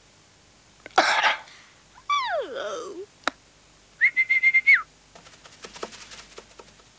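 Dog sound effects: a short snuffling sniff, then a falling whine, then a brief high whimper held on one pitch, followed by faint rustles.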